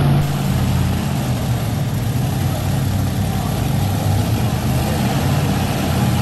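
Supercharged pulling-truck engine idling steadily with a deep, even rumble while the truck is being hooked to the sled.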